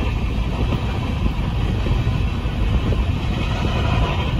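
Union Pacific empty coal train's cars rolling steadily through a road crossing, a continuous low rumble heard from inside a car.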